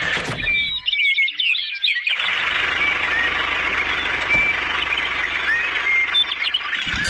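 Many short, quick chirps repeating, typical of small birds, over a steady hiss that sets in about two seconds in, with a faint low rumble underneath.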